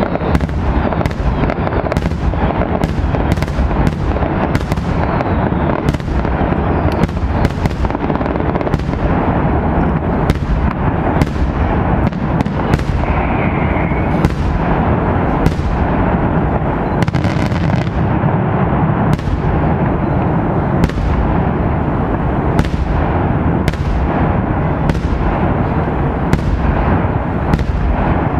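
Daytime fireworks display: a continuous barrage of loud bangs, about one or two a second, over a steady crackling rumble, each bang trailing off in a short echo.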